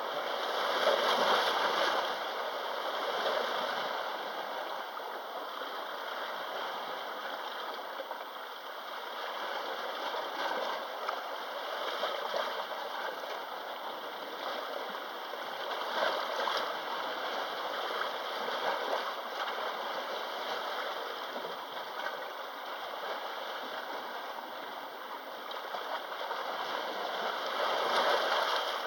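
Sea waves washing against the shore in a steady rush, surging louder about a second in and again near the end, with smaller surges between.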